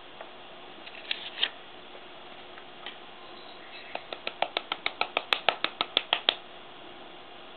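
A fast, even run of light, sharp taps, about seven a second for a little over two seconds, made by a hand tapping a small hard object at a kintsugi workbench. Two single clicks come about a second in.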